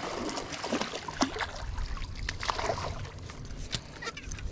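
A small largemouth bass being reeled up to the boat: water splashing and sloshing, with scattered sharp clicks.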